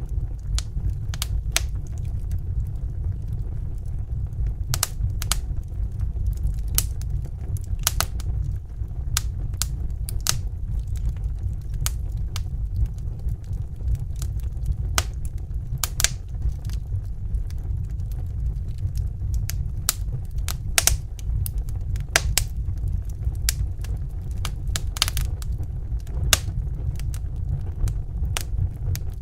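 Wood fire crackling in a fireplace: irregular sharp pops and snaps, several a second at times, over a steady low rumble of the burning fire.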